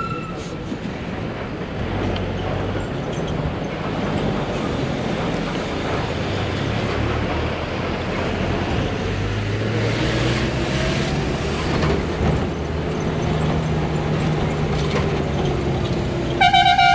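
Diesel engine of a state-transport bus heard from inside the cabin, running steadily with road noise, its pitch shifting up and down. A short, loud horn blast sounds near the end.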